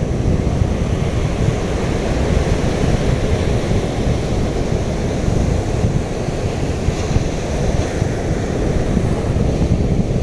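Rough ocean surf breaking and washing up the beach in a steady rush, with wind buffeting the microphone.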